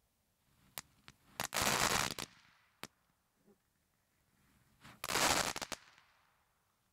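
Magic Stick consumer firework firing: a few sharp pops, then two loud bursts, one about a second and a half in and one about five seconds in, each lasting over half a second.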